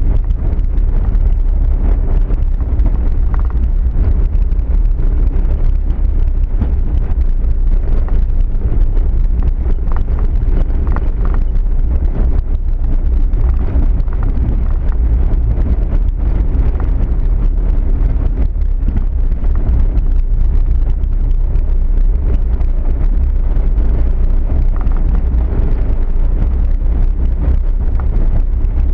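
Car driving slowly along a rough, narrow road: a steady low rumble of engine, tyres and wind on the microphone.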